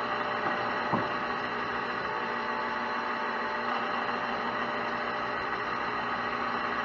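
Metal lathe running, with a drill boring a deep hole into copper rod: a steady hum with many fixed tones, and one brief knock about a second in.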